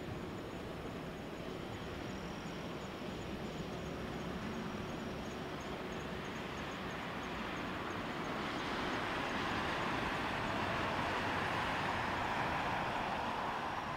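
Boeing 777-300ER's GE90-115B turbofans running at taxi power: a steady jet noise that grows louder about eight seconds in.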